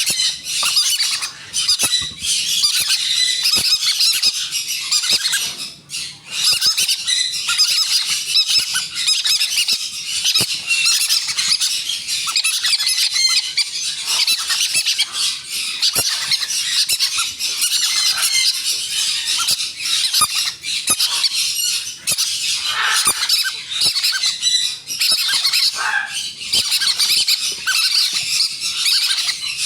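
Green-cheeked conure chicks giving harsh, rapid, nonstop squawking begging calls while being hand-fed, with only a brief pause about six seconds in.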